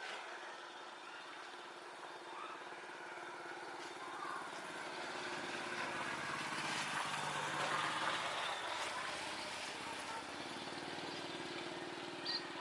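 Airliner passing, its engine noise slowly building to a peak about eight seconds in and then easing off, with a low hum under a broad rush.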